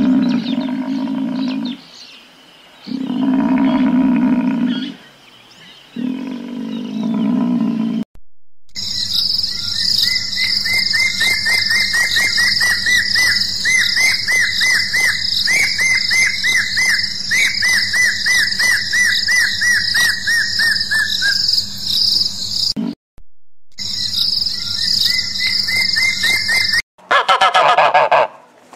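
A buffalo gives three low, drawn-out moans. Then a spotted thick-knee calls a long, rapid run of repeated piping whistles over a steady high insect drone, and near the end geese honk loudly.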